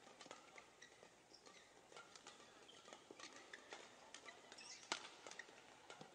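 Faint badminton doubles rally: rackets hitting the shuttlecock in a string of sharp, irregular clicks, with shoes squeaking and pattering on the court. The sharpest hit comes about five seconds in.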